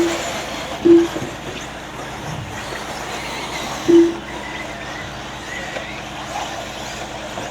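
Electric RC buggies racing, a steady noisy background at the track, broken by three short, loud beeps: one right at the start, one about a second in and one about four seconds in.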